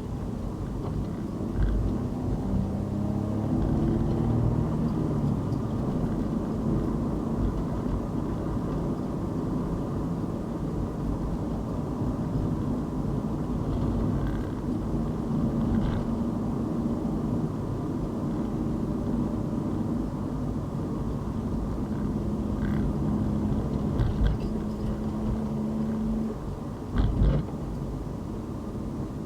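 Car driving on a city road: steady engine and tyre rumble. An engine hum rises in pitch in the first few seconds, holds steady, then drops away near the end, followed by a couple of low thumps.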